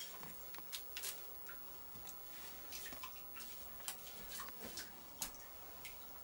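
Faint, irregular clicks and scuffs of shoes stepping on wet rock and through shallow water, with a few light knocks as a person scrambles up a rocky slope.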